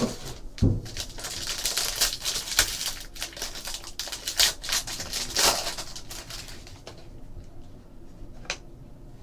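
Trading-card box packaging and cards being handled and opened: rapid crinkling and small clicks, busiest through the first six seconds, then quieter with a single click near the end.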